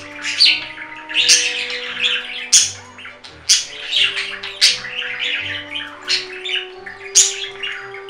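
Budgie (budgerigar) singing: a busy run of scratchy warbling chatter broken by sharp, high chirps about every half second, over soft background music.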